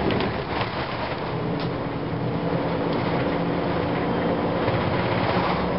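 2004 Gillig Phantom transit bus under way: its Cummins ISM diesel and Voith transmission running with a steady drivetrain hum, with a few short rattles and clicks.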